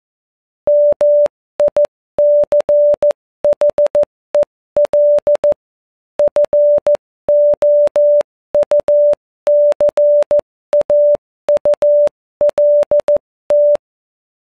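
A single steady electronic beep tone keyed on and off in an irregular pattern of short and long beeps, like Morse code, each beep starting and stopping with a click. It starts just under a second in and stops shortly before the end.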